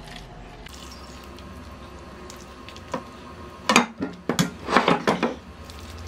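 Metal tongs clinking and clattering against a metal baking tin and pot while a hot shredded chicken-and-potato mixture is lifted in: one clink about three seconds in, then a quick run of clanks and scrapes lasting about a second and a half.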